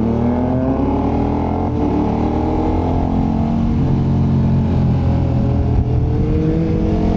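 KTM 1290 Super Adventure's V-twin engine running under way. Its pitch eases down slightly at first, holds steady, then rises again near the end as the bike accelerates.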